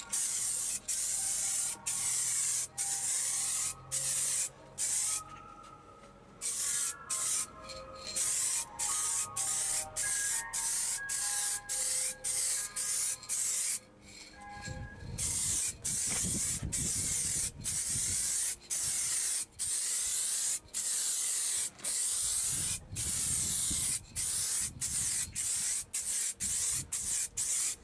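Aerosol spray can of candy paint hissing in a long series of short bursts with brief pauses between passes, as coats are laid onto a crash helmet. An ice cream van's chime tune plays in the background through roughly the first half.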